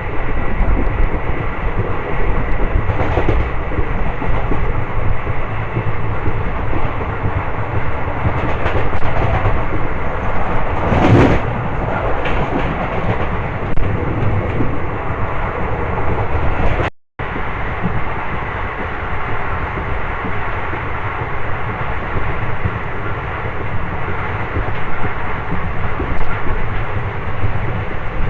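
Nagpur–Shahdol Express train running on the line, a steady loud rumble of wheels on rail with some clickety-clack. It swells louder about eleven seconds in and cuts out briefly around seventeen seconds.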